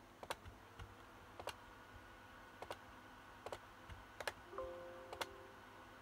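Faint, sparse clicks of a computer's pointing controls being worked, roughly one a second, over low room hiss.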